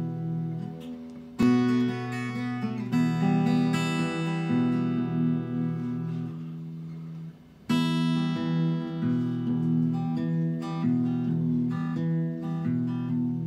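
Acoustic guitar playing an instrumental introduction, picked chords ringing out note by note. A loud chord strikes about a second and a half in. The playing fades to almost nothing near seven seconds, then a fresh strong chord comes in.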